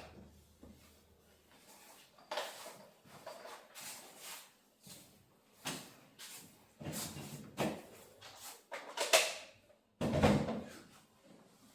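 Irregular scraping and knocking of hand work on wood inside a kitchen sink base cabinet, as a small piece of wood is worked loose; the loudest knock comes about nine seconds in.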